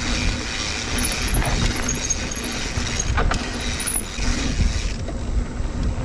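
Mountain bike rolling along a dirt trail: a steady low rumble of tyres and wind on the microphone, with faint high squeaks from about one to four seconds in.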